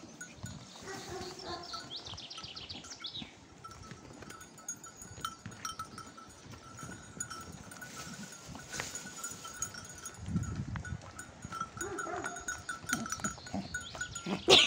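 Donkeys eating bread at a wire fence: quiet chewing and small mouth noises close by, with a faint steady high tone behind and a brief trill about two seconds in.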